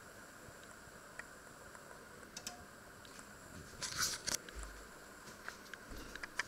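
Faint steady room hum, with a few small clicks and a short cluster of louder clicks and rustles about four seconds in from the handheld camera being moved.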